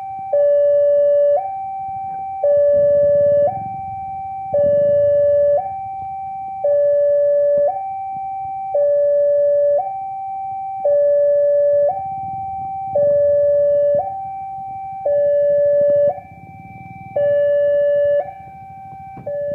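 Railway level-crossing warning alarm sounding: an electronic two-tone signal, a higher and a lower note alternating about once a second, warning that a train is approaching. A faint low rumble runs underneath.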